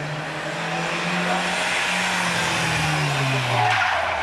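Rally car engine running hard as the car approaches and passes close by; the engine note falls in pitch near the end as it goes past.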